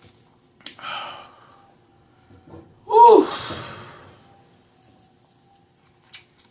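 A woman's voiced gasp-like sigh with a falling pitch, about three seconds in, trailing off into breath. Before it there is a short breath and a faint mouth click.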